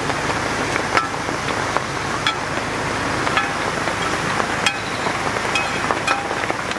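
Sliced onions and green chillies sautéing in oil in a large metal wok, giving a steady sizzling hiss. A perforated steel ladle clinks and scrapes against the pan about seven times, each clink ringing briefly.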